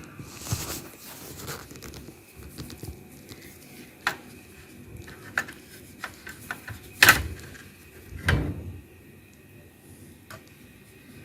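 Scattered clicks and knocks of plastic parts being handled, about five in all, the loudest around the middle, as a Brother DR-2200 laser printer drum unit is taken apart by hand.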